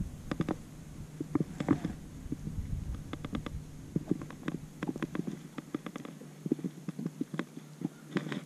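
Irregular light clicks and knocks over a steady low hum.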